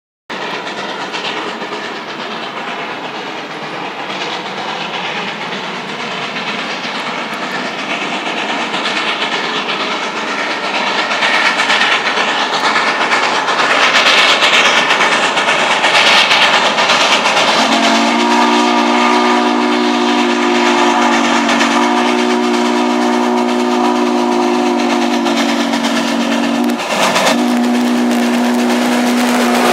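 Baldwin 2-8-0 steam locomotive working a passenger train, its running noise growing louder as it approaches. About eighteen seconds in, its chime steam whistle sounds one long, steady chord with a brief break near the end.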